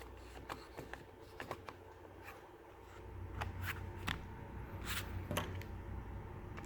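Faint scattered clicks and light handling noises as a laptop battery is fitted back into an HP ZBook G3's open chassis, over a steady low hum.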